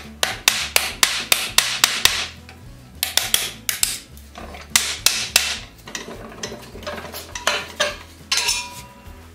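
Hammer tapping a thin wooden wedge into a spoke tenon through a wooden wagon wheel's felloe. A quick run of sharp strikes about four a second is followed by shorter groups of strikes.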